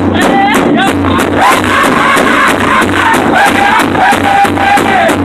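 Powwow drum group singing in high voices over a steady beat struck in unison on a big powwow drum with drumsticks.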